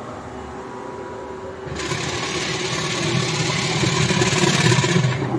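Inkjet DTF printer running: a steady low machine hum, then from a little under two seconds in a louder whirring hiss as the print-head carriage moves across the film, which stops shortly before the end, leaving the low hum.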